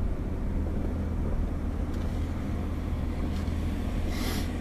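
Car cabin noise while driving: a steady low rumble of engine and road noise, with a brief hiss about four seconds in.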